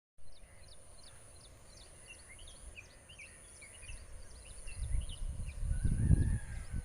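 Many small birds chirping in a morning outdoor chorus over a steady, very high-pitched whine. A low gusty rumble builds in the last couple of seconds and is the loudest sound.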